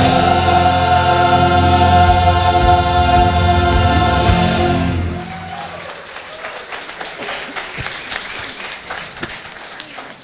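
A choir holds a long closing chord with bass accompaniment, which cuts off about five seconds in; it is followed by applause.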